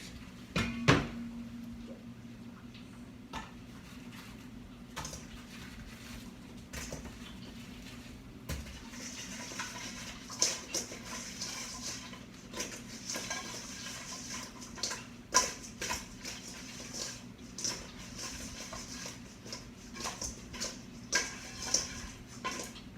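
Kitchen utensils and dishes clinking and knocking at irregular intervals, the clatter getting busier about halfway through.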